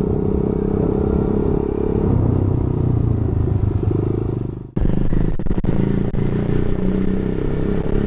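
Motorcycle engine running as it is ridden slowly along a street, a steady low sound. It cuts off abruptly about four and a half seconds in and picks up again at once, with scattered crackles after that.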